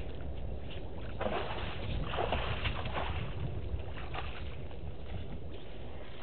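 African elephant stepping out of a shallow waterhole, its feet splashing and sloshing in the water a few times between about one and four seconds in. A steady low rumble of wind on the microphone lies underneath.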